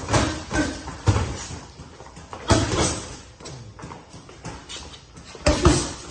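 Boxing gloves striking pads and a partner's guard during sparring: quick sharp smacks in irregular clusters, the loudest about two and a half seconds in and near the end.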